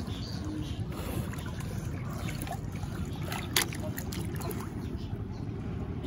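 Sea water sloshing around a small boat, with wind on the microphone as a steady low rumble. A single sharp knock about three and a half seconds in.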